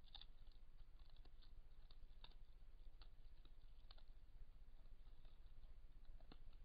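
Near silence: a low steady hum with faint, scattered clicks, a few a second, the sharpest right at the start and another about six seconds in.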